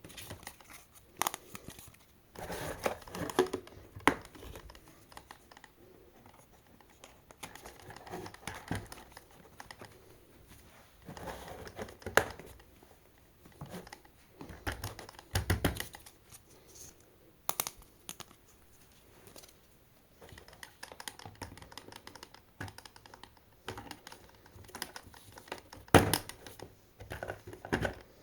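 Toy car packaging being handled and opened: plastic and cardboard crinkling and tearing in irregular bursts, with scattered sharp clicks and taps.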